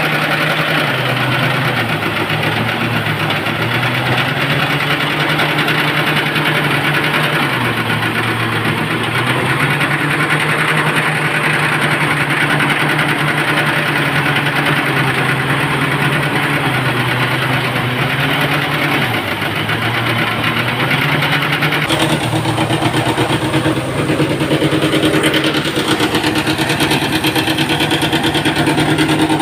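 Engine-driven rice thresher running steadily as rice stalks are fed into it. The engine's pitch sags and recovers several times under the load. The sound changes abruptly about three-quarters of the way through.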